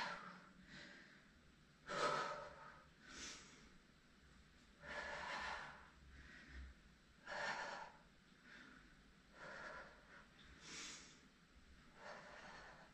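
A person breathing hard from exertion while holding a plank-type bodyweight exercise, with short audible breaths about every second and a half.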